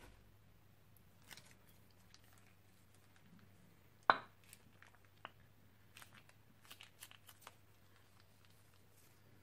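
Slime being squeezed from a piping bag and stirred on a plate: faint sticky crackles and small pops, with one sharp click about four seconds in and a short run of crackles a couple of seconds later.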